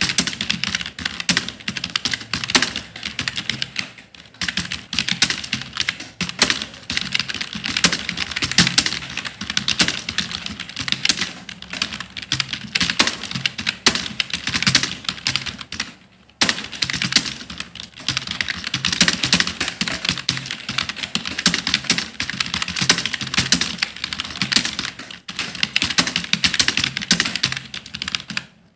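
Fast, continuous typing on a computer keyboard, a dense run of key clicks. It breaks off briefly about halfway through and again at the end.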